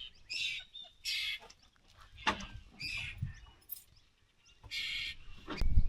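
Birds calling outdoors: about five short, separate calls with quiet gaps between them.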